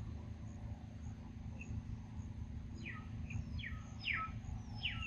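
A bird calling in the forest: four quick whistled notes, each falling steeply in pitch, starting about three seconds in, with a faint high chirp repeating evenly behind them over a steady low rumble.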